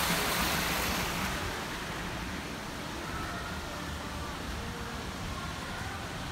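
Water splashing from a tiered outdoor fountain's jets, loud at first and dropping away about a second in, leaving a quieter steady hiss and low rumble.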